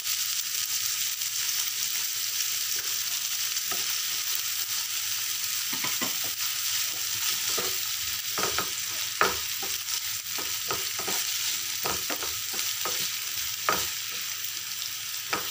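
Chopped onions sizzling in hot oil in a non-stick frying pan, stirred with a spatula that scrapes and now and then knocks against the pan; the sharpest knocks come about nine and fourteen seconds in.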